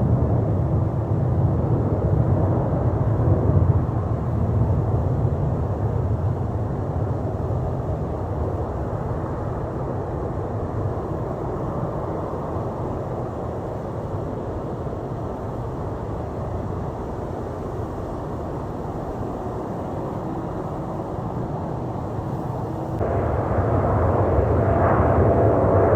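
Jet engine rumble from a departing Boeing 787-9 airliner: a steady, deep roar, which turns louder and brighter abruptly about 23 seconds in.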